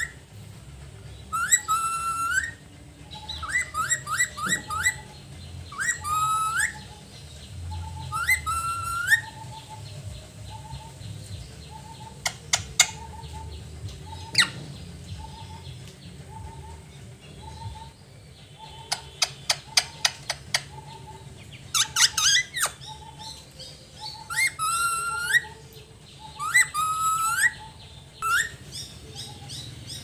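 Caged green parakeet calling in bursts of short, sweeping squawks, several in quick succession, with pauses between the bursts. In the middle stretch it gives rapid clicking chatter instead.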